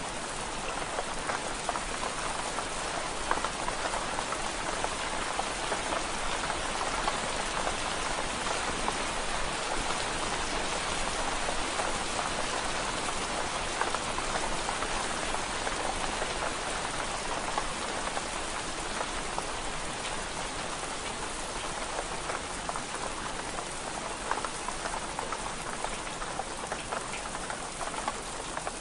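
Steady rain pattering on window glass: an even wash of drops with many small scattered ticks, holding level throughout.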